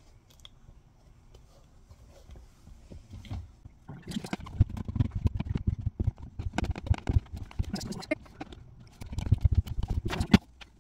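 Hand-pumped hydraulic crimping tool being worked to press a lug onto a heavy battery cable: quick clicks and knocks from the pumping handle and ram, starting about four seconds in and running in two spells with a short pause between.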